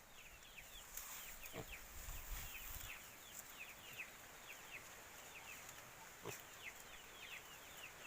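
Faint, continuous peeping of young chicks: many short chirps, each falling in pitch, several a second, with a couple of light knocks.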